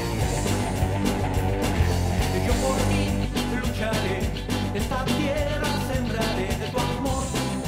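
Rock song with a steady drum beat and bass; a voice sings over the band from about three seconds in.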